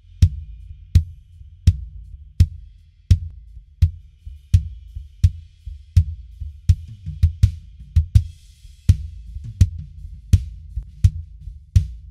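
Recorded drum kit playing a steady beat, the kick drum hitting about every 0.7 seconds with snare and hi-hat and a cymbal wash past the middle, low end ringing between the hits. The kick runs first through an 1176-style FET compressor with a fast 0.8 ms attack for extra snap, then with the compressor bypassed.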